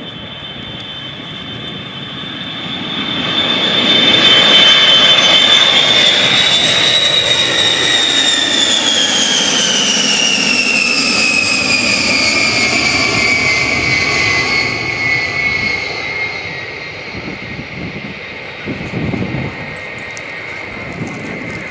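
B-52H Stratofortress with its eight TF33 turbofan engines passing low overhead: jet engine noise with a high whine. The sound swells about three seconds in, then the whine falls steadily in pitch as the bomber goes by and the noise slowly fades.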